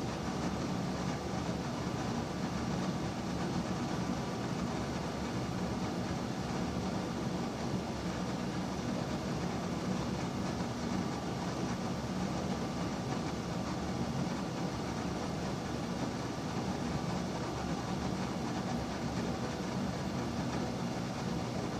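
Electric bathroom exhaust fan in a public men's room running steadily: an even rush of air over a low hum, with no change in speed.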